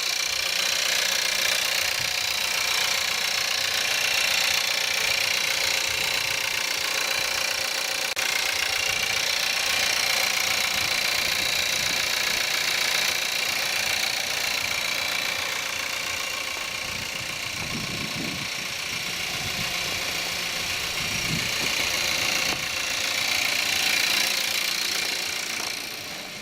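Skoda Octavia 1.4 TSI 150 hp petrol engine running cold after a start at −5 °C, with a steady clattering rattle that sounds like a diesel.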